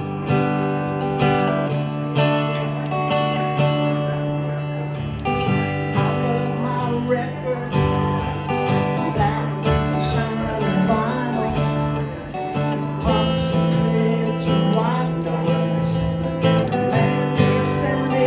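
Acoustic guitar strumming a song, with sustained chords that change every second or two.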